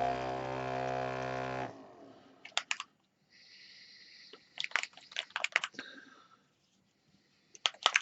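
Mini vortex mixer running with a steady buzzing hum while a paint bottle is pressed on its cup, stopping about a second and a half in. Scattered sharp clicks and light rattles follow.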